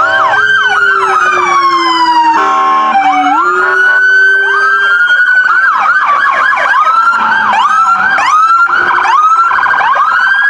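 Police car sirens, several at once: long falling wails overlapping quick yelping sweeps, with a short buzzing horn-like blast a little over two seconds in.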